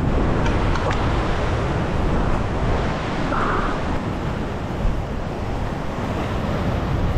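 Steady wash of ocean surf, with wind on the microphone.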